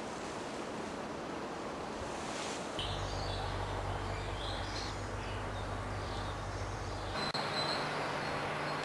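Outdoor background: a steady hiss with a low steady hum and a few bird chirps. The background changes abruptly about three seconds in and again about seven seconds in.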